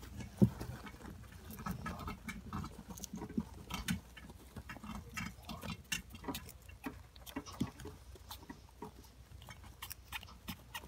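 Many hamsters scrabbling and shuffling through wood-shaving bedding: a busy, irregular patter of small scratches and clicks. One loud knock comes about half a second in.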